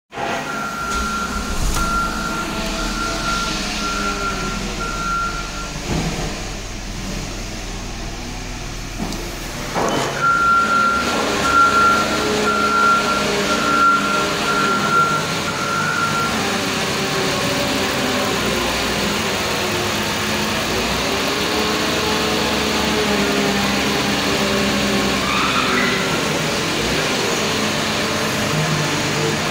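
2007 Chrysler Pacifica's 3.8-litre V6 idling steadily, while the car's warning chime beeps about twice a second in two runs during the first half.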